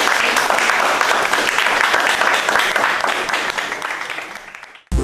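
Audience applauding: many hands clapping together in a dense patter that fades out near the end.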